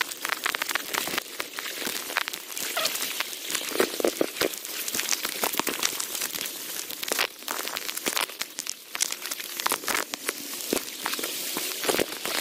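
Footsteps wading through a shallow, fast-flowing brook over an uneven stony bed: irregular splashes and sloshes over the running water.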